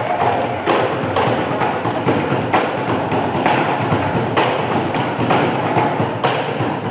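Drumsticks beating a rhythm on hollow plastic trash bins, with loud accents about once a second and quicker strikes between them.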